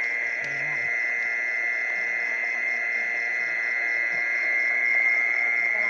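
Mole crickets calling: a steady, unbroken high trill that holds at one pitch with no pause.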